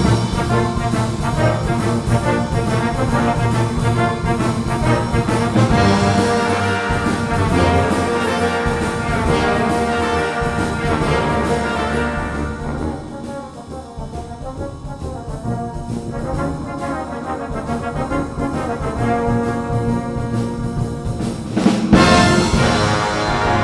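Music led by brass instruments, sustained chords and melody with an orchestral sound; it softens about halfway through and swells again near the end.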